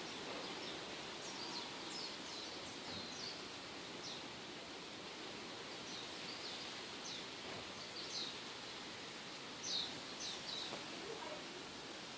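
Small birds chirping in short, high, falling notes, bunched in quick runs early on and again near the end, over a steady outdoor hiss.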